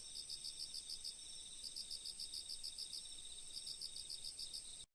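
Crickets chirping faintly in an even rhythm of about five pulses a second over a steady high trill, a nature-sound bed for relaxation. The sound drops out for an instant near the end.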